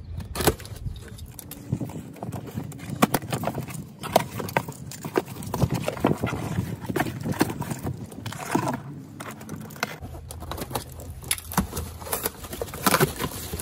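Cardboard box being opened and handled by gloved hands: flaps rustling and scraping, with irregular knocks and taps.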